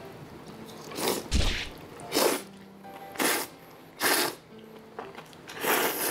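A person slurping curry noodles, about six short noisy sucking slurps roughly a second apart, with a low thump a little over a second in.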